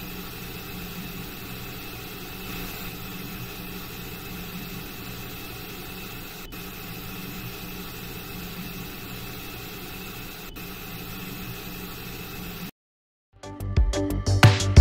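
Jeweller's gas soldering torch hissing steadily, with a low hum underneath, while it heats the solder joint at a chain bracelet's clasp. Two faint clicks come midway. The hiss cuts off near the end, and background music with a beat starts.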